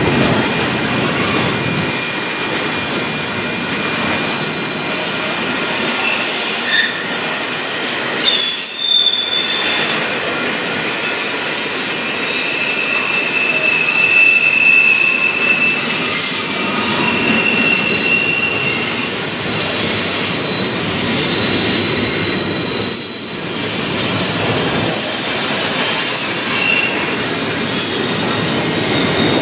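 Double-stack intermodal container train rolling past, its well cars rumbling steadily over the rails. Short high-pitched wheel squeals come and go throughout.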